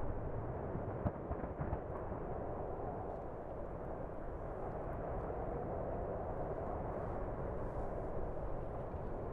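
Volcanic crater erupting, its lava fountain giving off a steady, low rushing noise, with a faint sharp crack about a second in.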